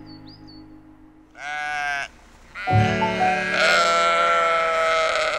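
Sheep bleating: a short bleat about a second and a half in, then louder, longer bleating that carries on to the end.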